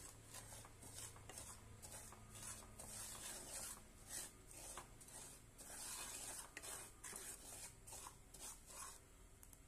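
Wooden spatula scraping and stirring dry semolina around a pan, a faint rough rubbing with each stroke, about one or two strokes a second, stopping shortly before the end. The semolina is being dry-roasted over medium flame.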